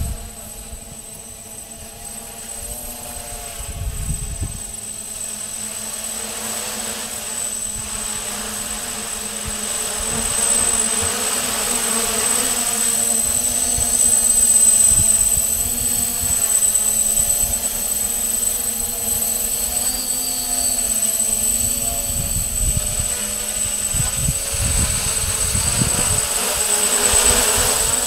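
Hexacopter's six electric motors and propellers buzzing in flight, the pitch wavering up and down with throttle changes. The sound grows louder over the first ten seconds or so as the drone comes close, and a steady high whine sits above it.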